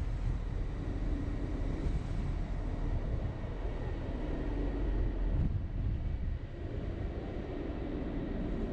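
Steady low rumble of a car driving: road and engine noise, with a faint steady whine above it.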